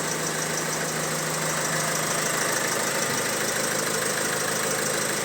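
Opel Insignia's 1.6 B16DTH diesel engine idling steadily, listened to for the timing-chain rattle that a stretched chain causes.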